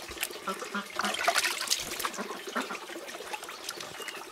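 Water sloshing and splashing in a plastic basin as a large slab of raw pork is washed and turned over by hand, busiest about a second or two in, with a trickle of water running through.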